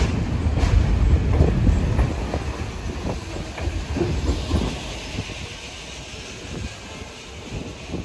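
New York City subway train running on the tracks, its wheels clacking over rail joints, with a low rumble that dies away steadily over several seconds.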